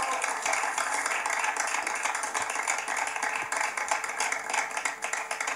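A group of people clapping steadily: dense, crackling applause.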